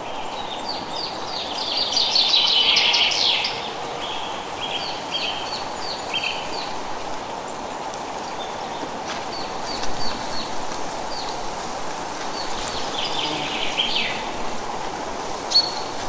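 Small birds calling in series of short high chirps, with a louder chattering burst about two seconds in and another near the end, over a steady rush of wind in trees.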